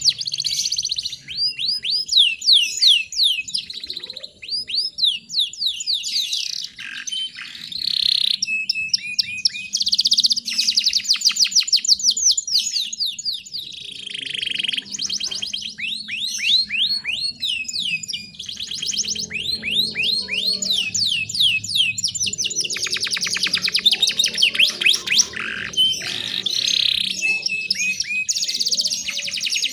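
Canary song: fast rolling trills and runs of rapid downward-sweeping notes, one phrase after another with brief pauses between them.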